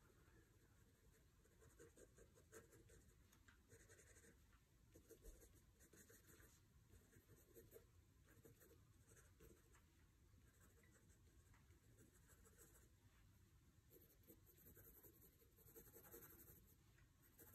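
Graphite pencil scratching on sketchbook paper as it draws and shades: faint, in short irregular strokes.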